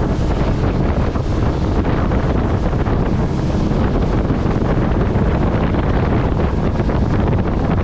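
Loud, steady wind rush buffeting the microphone of a boat running at speed over open sea, with water rushing past the hull.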